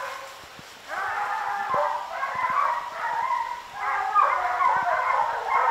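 A pack of bear hounds bawling and baying together, several voices overlapping, with a brief lull near the start. The hounds are bayed up at a tree, their tracking collars reading 'treed'.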